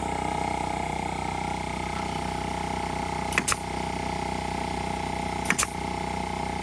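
A steady mechanical hum with two sharp double clicks, about three and a half and five and a half seconds in.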